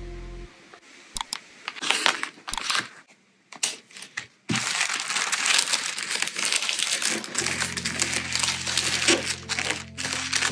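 Tissue paper crinkling and rustling as hands fold and smooth it around an order: short bursts in the first few seconds, then continuous from about four and a half seconds in.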